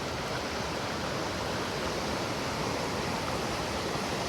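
Steady rush of flowing water from a mountain river or stream.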